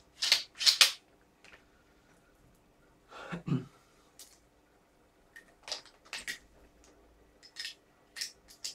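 Metal airsoft rifle parts clicking and knocking as they are handled and fitted together. A pair of sharp clicks at the start, a duller knock a little after three seconds, and several more light clicks near the end.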